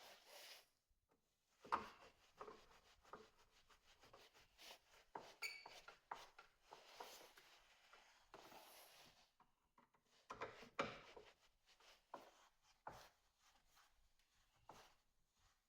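Faint handling sounds: scattered small clicks and taps with stretches of soft rubbing or scraping, the sharpest click about two seconds in.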